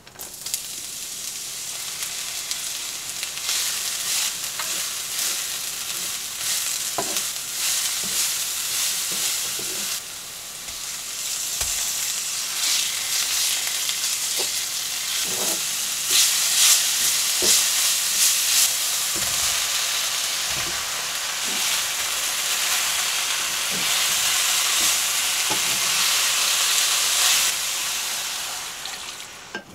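Green onion, garlic and ground beef sizzling as they stir-fry in oil in a nonstick frying pan, with a wooden spatula stirring and scraping and giving short clicks. The sizzle dips briefly about ten seconds in, comes back louder, and fades out just before the end.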